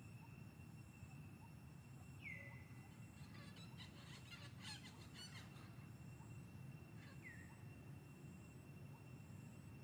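Faint outdoor ambience: a steady low hum with a thin, steady high tone, two short falling chirps, and a brief burst of rapid clicking in the middle.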